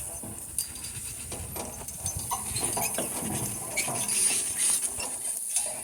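A team of harnessed donkeys walking: scattered small clicks, knocks and rattles of hooves and harness gear, over a steady high buzz of insects.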